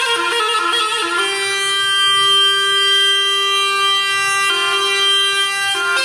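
Background music played on a reed wind instrument that sounds like a bagpipe. Quick ornamented notes give way about a second in to one long held note of about three seconds, then a shorter, slightly lower note, and quick notes again near the end.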